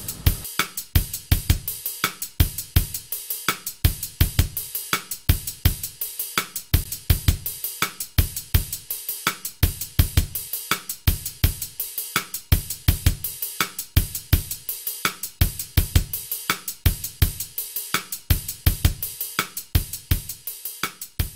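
Background music with a steady, driving drum-kit beat: bass drum, snare and hi-hats.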